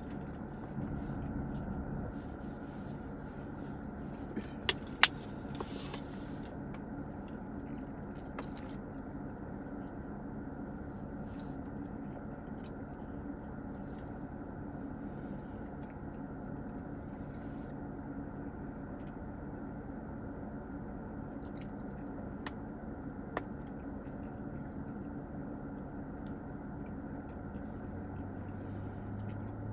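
Steady hum of a car running, heard from inside the cabin, with a few sharp clicks, the loudest about five seconds in.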